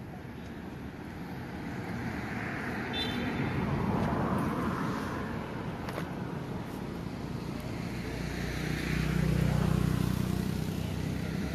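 Road traffic passing by: one vehicle swells and fades about four seconds in, and a second, louder one with a low engine rumble passes around nine seconds in.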